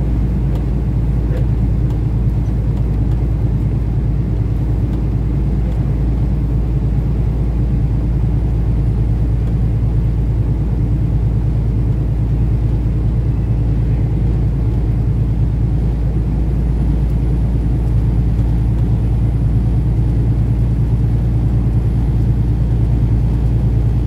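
Kenworth semi truck driving on the highway: a steady low engine drone and road rumble that stays even throughout.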